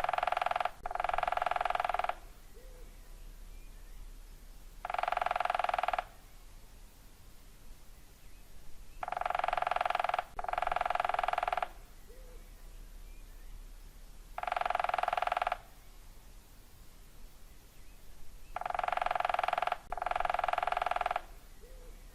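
Woodpecker drumming on wood: about eight rapid drum rolls of roughly a second each, some in close pairs, spaced a few seconds apart.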